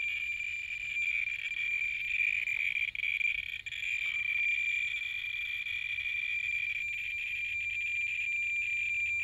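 Thermo handheld Geiger counter clicking so fast that the clicks run together into a steady chirring, held against a uranium ore vein reading about 17,000 to 24,000 counts per minute.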